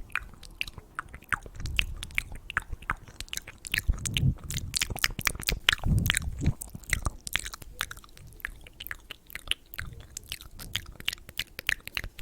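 Close-miked ASMR mouth sounds: a dense, uneven run of wet clicks and smacks, with a few soft low thumps about four and six seconds in.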